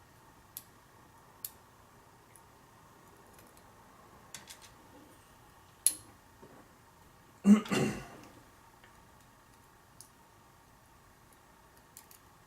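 Light metallic clicks and taps from a hand-built pin-tumbler lock being taken apart to reach its top pins and springs, with a louder clatter about seven and a half seconds in.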